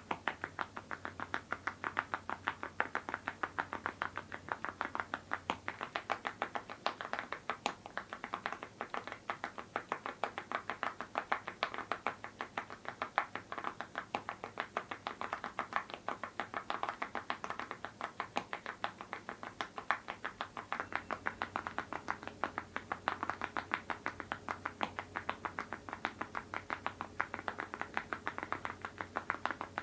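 Steady, fast typing on a mechanical keyboard with full-metal Awekeys keycaps on linear switches: a continuous run of sharp key clacks, several strokes a second, with no pauses.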